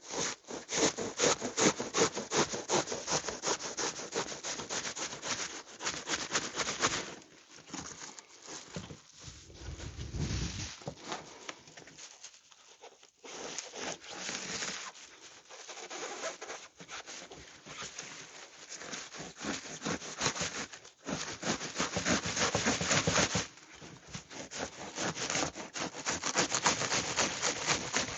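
Hand saw cutting through a motorcycle seat's foam cushion: rapid back-and-forth rasping strokes in several spells, with a quieter stretch of slower strokes in the middle.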